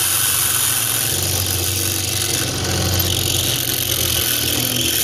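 Benchtop drill press running, its bit cutting into a steel strap backing plate wet with penetrating oil: a steady motor hum under a harsh, high grinding hiss from the bit in the metal. The owner finds this bit does not drill as well as the previous one.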